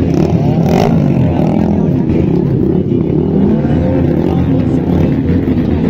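Loud exhausts of several modified cars and motorcycles revving at once, their overlapping engine notes rising and falling.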